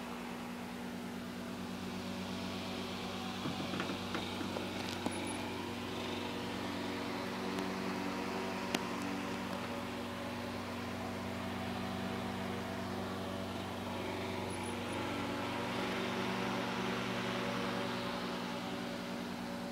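Steady electrical hum of running aquarium equipment, a motor-driven filter or pump, over a soft hiss of bubbling water, with a few faint clicks in the first half.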